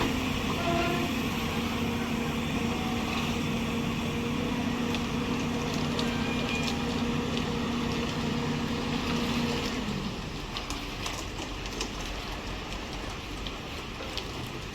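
Heavy-machinery diesel engine running steadily with a low drone, which stops or falls away about ten seconds in. Scattered light clicks and knocks remain afterwards.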